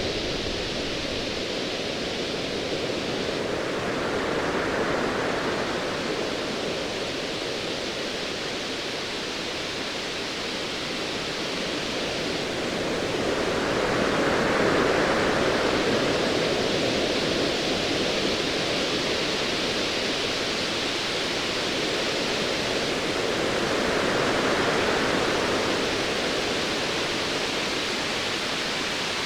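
Ocean waves washing in a steady hiss that swells three times, roughly every ten seconds.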